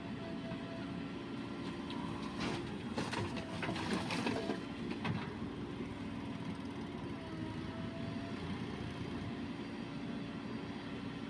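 Diesel engine of heavy machinery running steadily, with a burst of clanking and rattling from about two to five seconds in.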